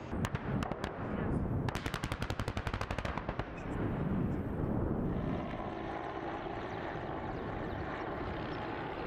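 Machine-gun fire on a firing range: a few single shots, then a rapid burst of about ten rounds a second lasting some two seconds. A steady rumble follows and runs to the end.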